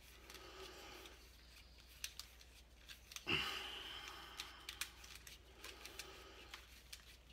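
Nylon trimmer line being wound by hand onto the plastic spool of a Husqvarna 525RX trimmer head: faint rubbing of line on plastic with scattered small clicks and ticks, and one louder brief sound about three seconds in that fades over about a second.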